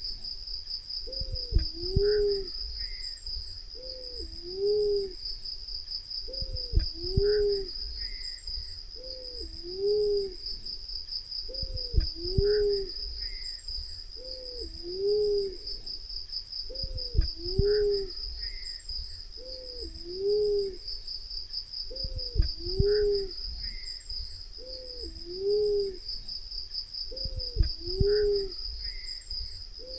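Black-naped fruit dove calling: a pair of low coos, the second arching up and down, repeated evenly about every two and a half seconds. A steady high-pitched trill runs underneath.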